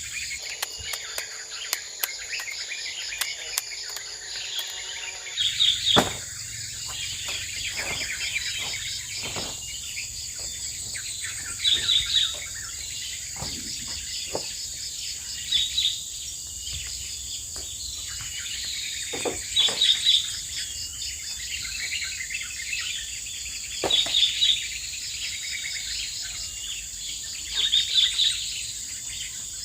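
Tropical forest ambience: insects keep up a steady high drone while a bird gives short loud calls about every four seconds, with scattered sharp knocks in between.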